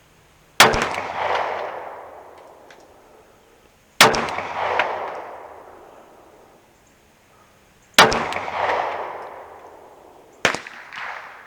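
Three 9mm pistol shots, slow aimed fire about four seconds apart, each followed by a long rolling echo. A fainter sharp crack comes near the end.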